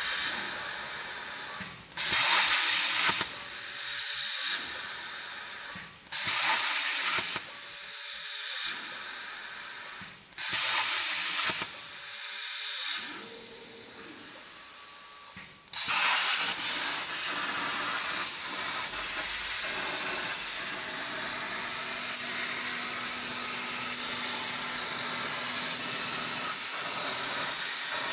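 Plasma cutter torch on a CNC table cutting steel plate, a harsh air-plasma hiss. For the first sixteen seconds the hiss starts abruptly, fades and breaks off, about every four seconds, as the arc fires and stops. It then runs steadily as a longer cut goes on.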